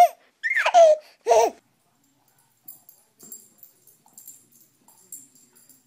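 A baby's squealing laugh, two short bursts in the first second and a half, the first falling sharply in pitch. Then faint light jingling and soft ticks as a small dog spins chasing its tail.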